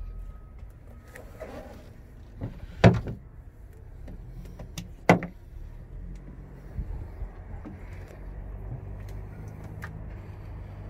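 Two sharp thuds about two seconds apart, typical of a boat's fibreglass storage hatch lid being shut, over a low steady rumble.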